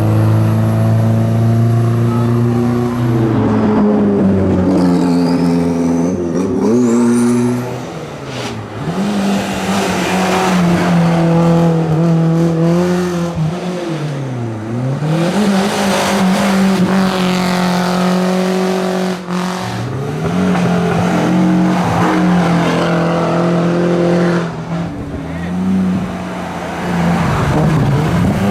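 Hill-climb race car engines at full throttle, revving up and dropping sharply at each gear change, several times over.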